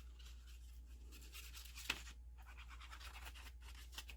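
Faint, quick rubbing and brushing on paper as glue is spread over the back of a paper bookmark, with one light tap about two seconds in.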